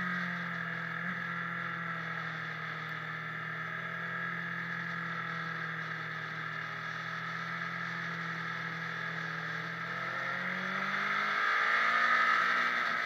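Motorcycle engine heard from on board the bike, running at steady revs, then revving higher and louder from about ten seconds in as it accelerates.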